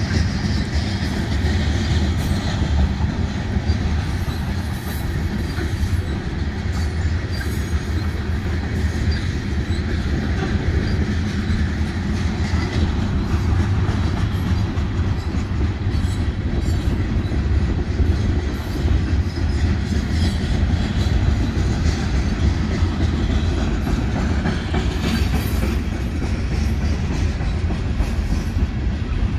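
Union Pacific manifest freight train's mixed cars (tank cars, a gondola and boxcars) rolling past close by. Steel wheels on the rails give a steady rumble, with intermittent clicking.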